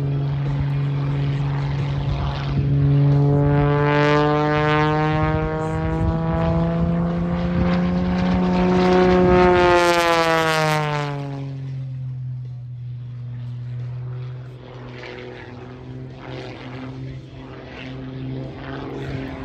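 Propeller aerobatic plane's engine and propeller passing overhead. The note rises in pitch and grows louder to a peak about ten seconds in, drops in pitch just after, then goes on quieter and steady.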